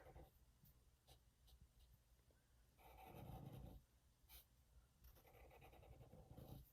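Faint scratching of a broad-tip marker being stroked back and forth on paper while colouring in. It comes in three spells: briefly at the start, loudest about three seconds in, and again from about five seconds in.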